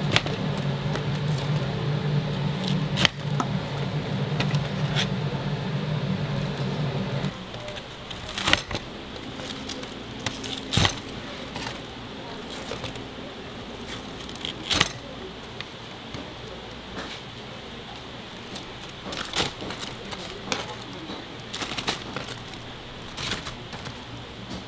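Hinged lever cutter (jakdu) chopping crisp fried chicken on a wooden board: sharp single chops every few seconds, the blade cracking through the crust. For the first seven seconds a steady low hum runs beneath, stopping abruptly.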